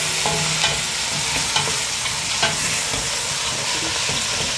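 Pieces of bone-in meat sizzling as they fry in oil in a pot, stirred with a wooden spoon that knocks against the pot a few times.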